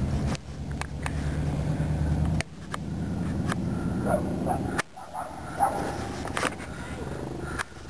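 Chevrolet Cavalier's 2.2-litre OHV four-cylinder engine running hard in the distance, loudest for the first couple of seconds and then dropping away abruptly as the car moves off. Several sharp clicks and a few short pitched sounds come through in the middle.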